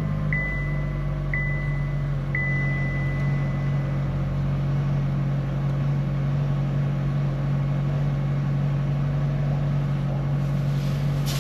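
The 2021 Chevy Equinox's 1.5-litre engine idling steadily just after an oil change, a constant low hum. A high beep repeats about once a second for the first few seconds, then stops.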